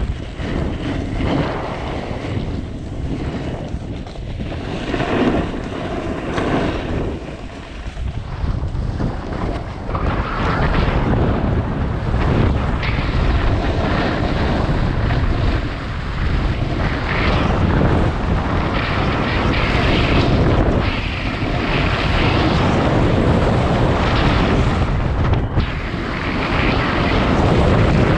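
A snowboard scraping and hissing over hard-packed groomed snow as it rides downhill, mixed with wind buffeting the camera microphone. It gets louder and rougher from about ten seconds in.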